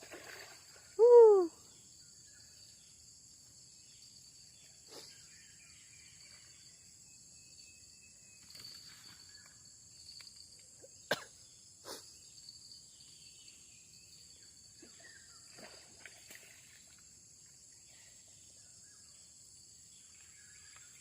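A steady, high-pitched chorus of insects droning. About a second in there is one loud, short call that rises and falls in pitch. Two sharp clicks come near the middle.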